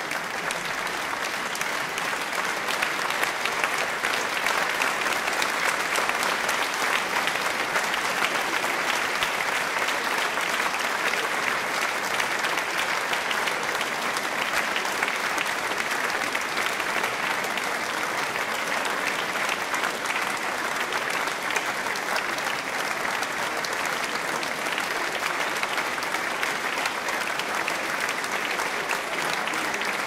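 A large audience applauding steadily, a dense and even wash of many hands clapping that holds its level throughout.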